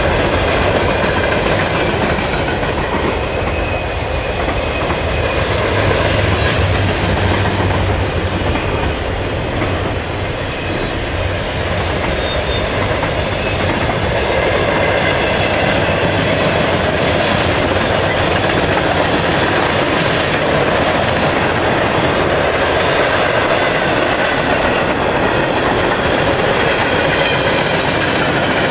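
Freight cars of a mixed freight train rolling past close by: a steady heavy rumble of steel wheels on the rail, with faint high wheel squeal running through it.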